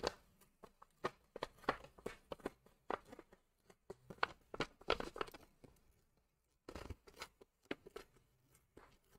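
Thin masking paper being torn slowly by hand into a narrow strip: a faint run of short, irregular rips and crackles that pauses for about a second two-thirds of the way through, then comes in a few more short rips.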